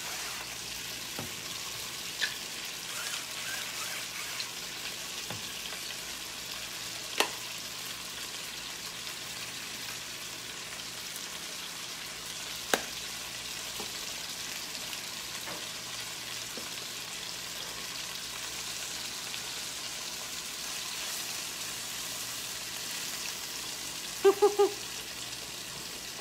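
Chicken thighs sizzling steadily as they brown in butter and olive oil in a skillet. A few sharp clicks stand out, and near the end there is a quick burst of three short tones.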